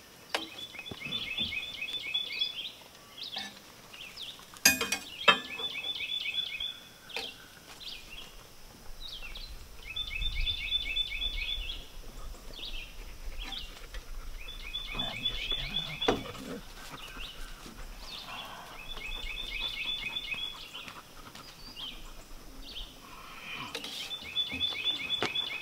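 A songbird singing a short phrase of rapid repeated notes, about a second long, again every four to five seconds, six times in all. A few sharp knocks cut in, the loudest two close together about five seconds in and another about sixteen seconds in.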